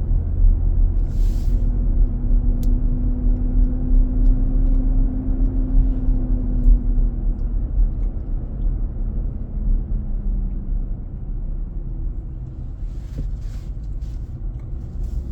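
Inside the cabin of a moving 2023 Nissan Armada: a steady low rumble with a droning hum that shifts slightly in pitch and weakens about halfway. This is the loud noise the dealer traced to the engine's cooling-fan clutch staying engaged.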